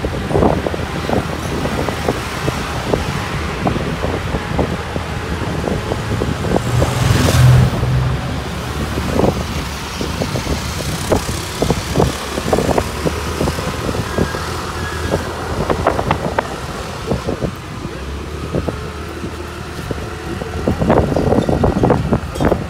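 Street traffic and engine noise heard while riding through city traffic, with wind buffeting the microphone in frequent short thumps over a steady low hum. About seven seconds in there is a louder rush, as of a vehicle passing close.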